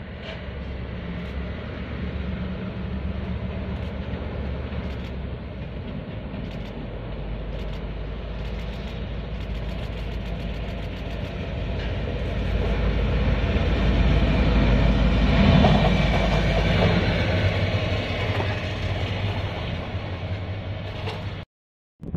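A Taiwan Railway locomotive running along the track with a low, steady engine drone. The drone grows louder to a peak about two-thirds of the way through, then eases, and it cuts off abruptly near the end.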